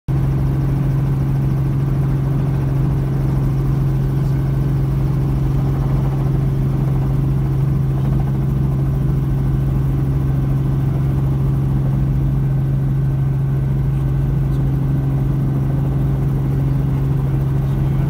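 Helicopter running steadily, heard from inside the cabin: a loud, constant low hum that does not change.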